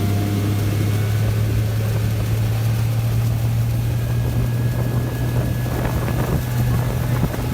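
Boat running at speed under an electric outboard built from a Tesla car motor and battery pack: a steady low hum under a rush of wind and water, with faint high tones slowly rising in pitch. The rushing noise grows near the end.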